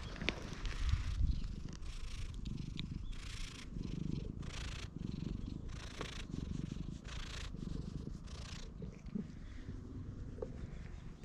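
Domestic cat purring steadily while being stroked under the chin, a low rumble pulsing with each breath about every two-thirds of a second. Brief hissy rustles come now and then as the hand rubs its fur.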